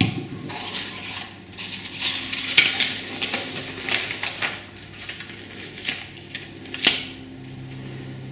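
Stiff brown craft paper rustling and crinkling as it is handled and laid onto a notebook, with a couple of sharp taps; the rustling is densest in the first half and then quietens.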